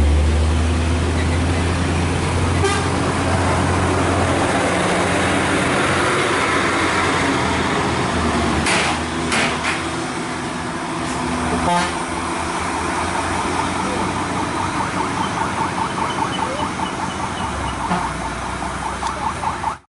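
Heavy diesel trucks running in road traffic: a strong, steady low engine hum for the first few seconds, then general traffic noise with a few sharp clicks about nine seconds in and a fast regular pulsing near the end.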